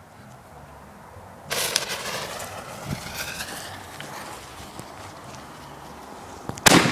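Consumer fireworks going off: a sudden loud hiss about a second and a half in that fades away over several seconds, then a sharp bang near the end.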